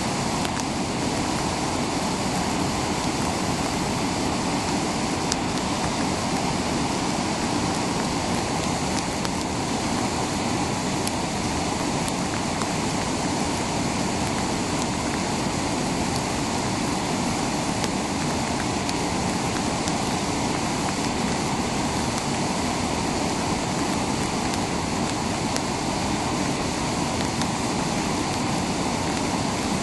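Whitewater rapids of a fast river, rushing steadily.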